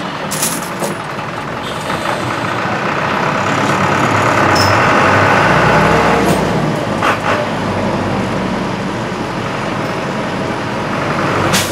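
Small city bus (buseta) engine and cabin noise heard from inside while driving, growing louder toward the middle and then easing, with a few short rattles and clicks.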